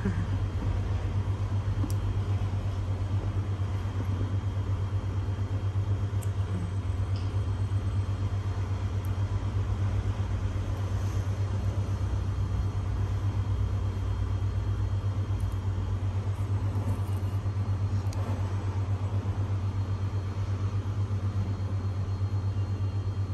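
Steady low hum of a shop's background noise, even throughout, with a few faint clicks.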